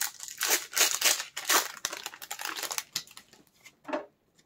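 Foil Pokémon booster pack wrapper crinkling as it is torn open and handled: a quick run of crackly rustles that thins out to faint rustling after about three seconds.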